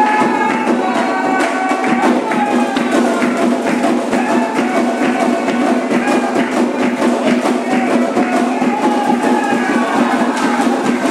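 Candomblé ceremonial music: steady, dense percussion of drums and a struck wood-block-like instrument, with voices singing a melody over it.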